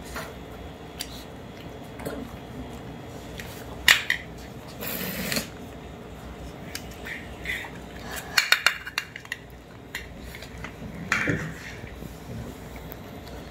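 Kittens eating wet food from stainless steel bowls, the metal bowls clinking and knocking now and then: once about four seconds in, a quick run of several clinks a little past the middle, and again near the end.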